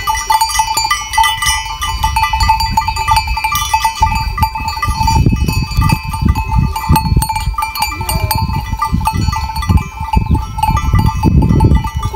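A flock of sheep and goats with many neck bells clanking and ringing together, mixed with bleating.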